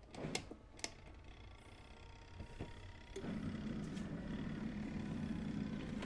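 Mini washing machine being started: two small clicks from its timer dial being turned, then about three seconds in the wash motor starts and runs with a steady low hum.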